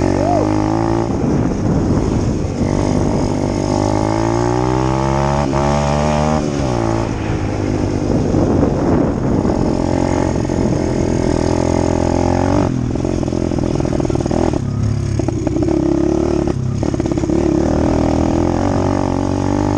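Dirt bike engine running under way, its pitch climbing as it accelerates between about four and six seconds in, then dropping back.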